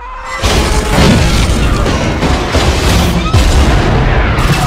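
Movie sound effects of a freight train derailing: a continuous loud din of crashing wreckage and booming explosions over a deep rumble, with several heavier hits.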